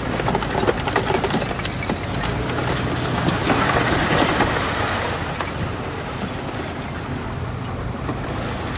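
Bulldozer's diesel engine running with a steady low hum, mixed with dense clanking and scraping of the tracks and blade on dirt and stone, loudest about four seconds in.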